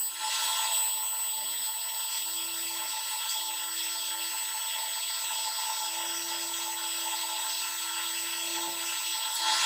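High-speed electric spindle running at about 20,000 RPM on a sensitive drill press, drilling through 7 mm thick steel: a steady high hum over a constant hiss, growing a little louder near the end.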